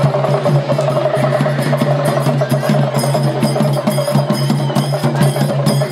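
Loud, fast percussion music: quick, evenly spaced drum strokes over a steady low hum, with a sharp clicking beat joining about halfway through.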